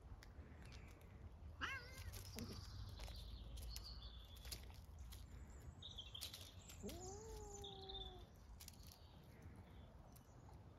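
A cat meows twice: a short wavering call about two seconds in, then a longer, lower call that rises and then holds, about seven seconds in. Faint high chirps and light clicks come in between.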